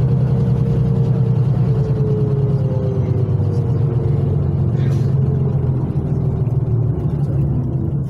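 Karosa LC735 coach's diesel engine running steadily under way, heard from inside the cabin as a deep, even drone with a thin tone above it that slowly falls in pitch.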